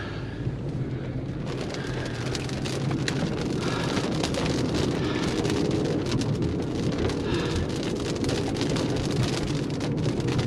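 Heavy rain pelting down, with many drops ticking sharply on a hard surface over a steady low hum; it gets a little louder as it goes.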